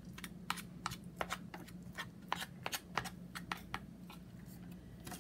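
Irregular light clicks and taps, three or four a second, of small items and packaging being handled on a table, over a steady low hum.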